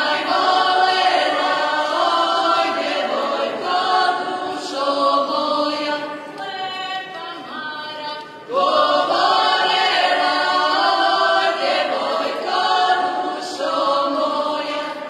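A group of voices singing a Croatian folk song unaccompanied, the song of a ring dance; a new phrase starts loudly at the beginning and again about halfway through.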